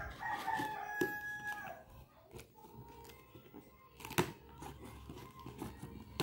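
A rooster crowing once, a pitched call lasting about a second and a half near the start, with a fainter held call a little later. Sharp taps of hands on a cardboard box come about a second in and, loudest, about four seconds in.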